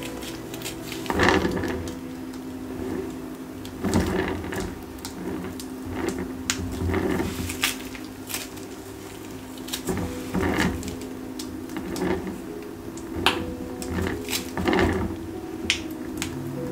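Irregular soft knocks and rustles of hands handling a plastic piping bag of thick paint, a few seconds apart, over a steady low hum.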